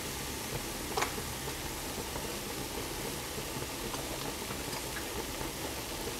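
A pot of fried mushrooms and flour sizzling and bubbling steadily on the stove as cream is poured in from a carton, with one light click about a second in.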